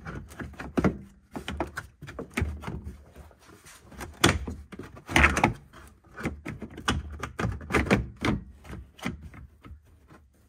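Plastic interior trim panel being worked into place by hand: an irregular run of knocks, clicks and rubbing of plastic on plastic, loudest about five seconds in.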